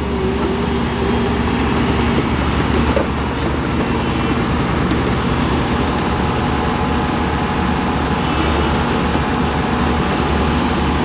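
Heavy earthmoving machine's diesel engine running steadily as the machine moves off; a continuous low drone without breaks.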